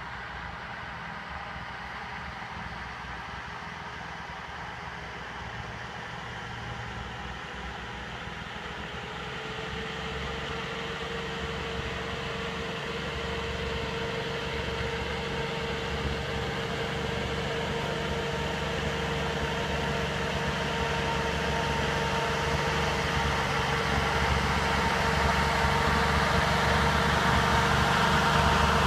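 Volvo TP21 'Sugga' with its straight-six side-valve engine running as it drives up a snowy road towards the listener, growing steadily louder as it approaches. A steady whine comes in about a third of the way through and grows with the engine.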